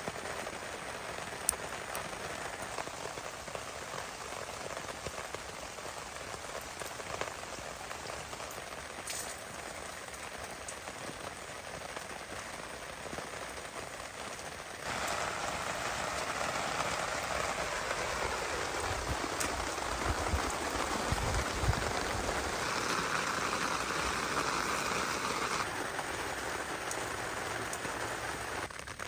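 Heavy rain falling steadily, with scattered sharp drop ticks; about halfway through it suddenly gets louder.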